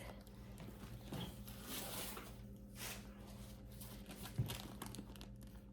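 Faint, irregular rustling of a leather handbag being handled as a hand reaches into its pocket, with a soft bump about four and a half seconds in.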